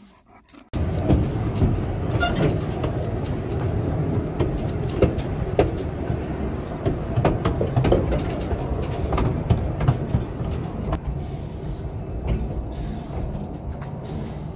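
Narrow-gauge railway carriage running along the track, heard from its open end balcony: a steady low rumble with scattered clicks and knocks from the wheels and couplings. It starts suddenly under a second in and eases a little near the end.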